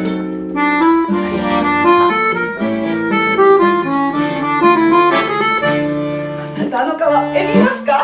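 Chromatic button accordion playing a melody over held chords. The texture turns busier and more broken near the end.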